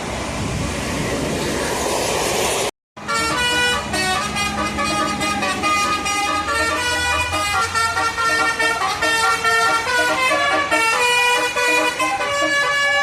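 A rising rush of vehicle noise cuts off abruptly about three seconds in. Then a tour bus's telolet basuri musical horn plays a quick melody of several horn tones at once, stepping from note to note.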